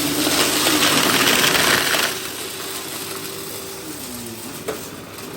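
Eureka PowerSpeed vacuum cleaner running with a steady motor whine while grit rattles up through it for about two seconds, then switched off, its motor winding down and falling in pitch.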